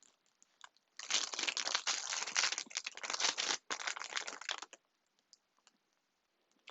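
Packaging crinkling and rustling as an item is handled and unwrapped: a dense run of crackles lasting about four seconds, with a brief pause partway through.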